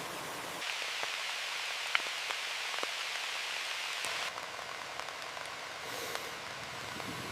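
Steady heavy rain hiss with a few sharp drop ticks, the loudest about two seconds in. The rain's tone changes abruptly about half a second in and again past the middle, as the sound jumps between takes.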